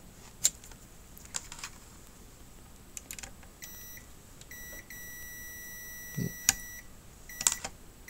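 Digital multimeter in continuity mode beeping as its probes touch a pair of diodes on a TV power supply board: two short beeps, then one long steady beep of about two seconds. The beep signals continuity, a shorted diode. Light clicks of the probe tips on the board come before and between the beeps.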